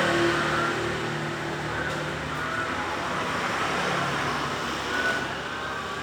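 Steady rushing background noise like road traffic, with no clear rhythm and a few faint short high tones.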